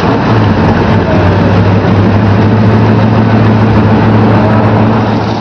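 Mud truck's engine running steadily, a loud low drone held at an even pitch.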